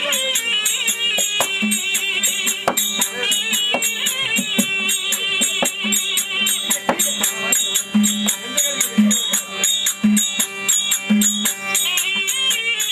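Therukoothu folk ensemble playing. A reed wind instrument carries a wavering, ornamented melody over hand-drum strokes, with a fast, even beat of small metal percussion.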